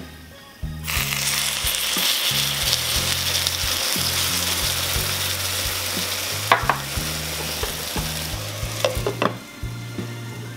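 Water poured into a hot oiled pan of browned pan-fried buns hits the fat and sizzles loudly, starting about a second in and slowly dying down. Near the end a few clinks as a glass lid is set on the pan, over soft background music.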